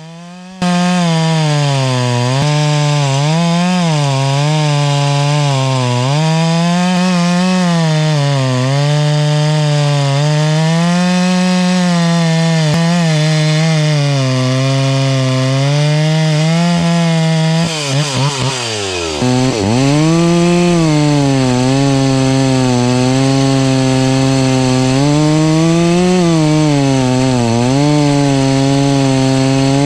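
Gas chainsaw running at high revs under load, ripping lengthwise along the grain of a log. The engine pitch wavers up and down as the chain bites and eases, and about two-thirds of the way through the revs drop sharply and climb back.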